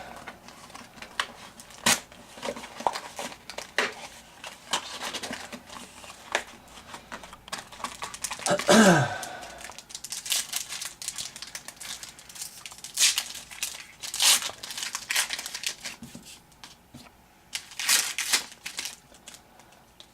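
Trading-card pack wrappers being torn open and crinkled by hand in irregular rustles and crackles. There is one loud, short, falling squeak a little before the middle.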